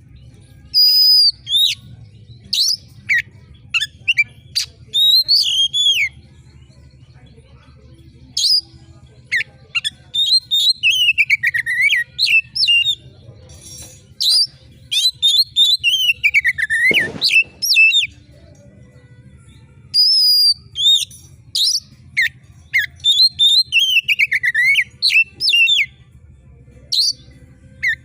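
Oriental magpie-robin (kacer) singing loudly in sharp, shrill phrases: high whistles and quick slurred notes falling in pitch, delivered in bursts separated by short pauses.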